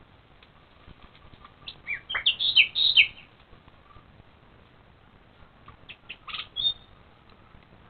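Badger cubs at the sett giving short, high-pitched squeaks and chirps in two brief flurries, about two seconds in and again about six seconds in, with faint rustling between.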